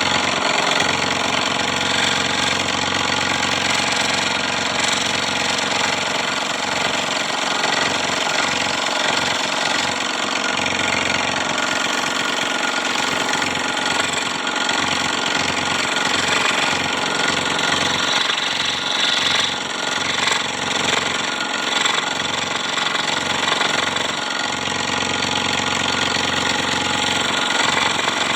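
Electric scroll saw running steadily, its blade reciprocating rapidly as it cuts through wood.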